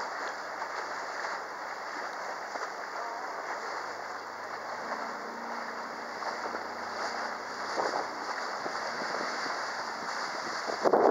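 A small open tour boat's motor running steadily under water rushing past the hull, its note shifting slightly about halfway in. Wind buffets the microphone, with a louder gust near the end.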